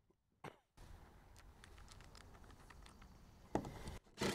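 Faint small clicks and taps of a screw being handled on a driver bit. Near the end, a cordless drill starts running, driving a screw into the tailgate ladder's mounting plate.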